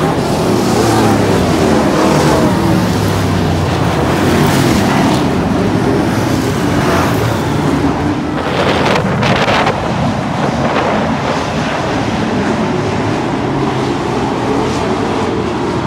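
A field of pro stock dirt-track race cars running laps, several engines at once, their pitch rising and falling as the cars pass and circle the oval.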